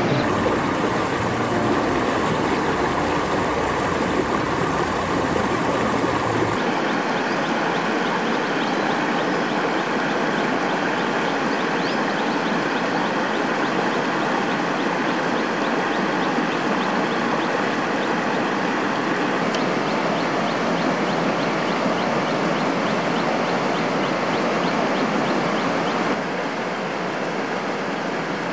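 Clear, shallow rocky stream rushing over stones: a steady hiss of flowing water that loses its low rumble about six seconds in and drops a little in level near the end.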